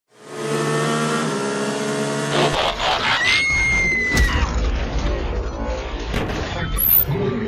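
Intro sting of music and cinematic sound effects: a held synth chord, then deep booms and crashing hits with a brief whistling tone. The effects suit a Transformer robot stomping in.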